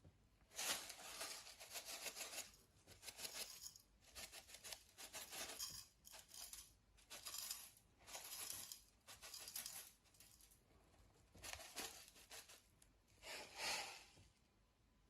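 A series of about a dozen short bursts of rustling, tearing noise, each under a second, with brief gaps between them.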